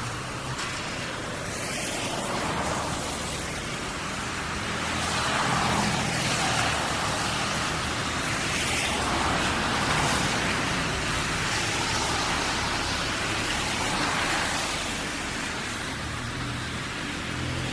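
Street traffic on wet pavement: cars passing one after another, their tyres hissing on the wet road, each pass swelling and fading, over a low steady engine hum.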